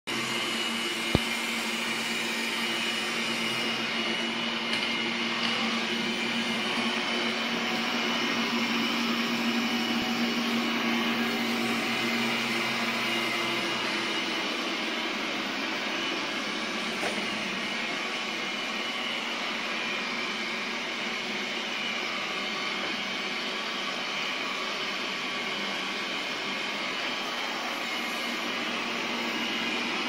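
Robot vacuum cleaner running across a wooden floor: a steady whirring with a low hum and a high whine, the low hum dropping away about halfway through. A single sharp click about a second in.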